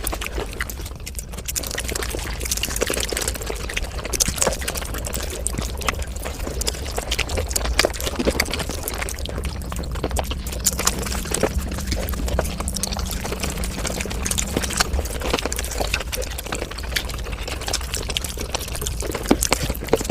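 Close-miked eating and chewing sounds played back at five times speed: a dense, continuous run of wet smacks and clicks.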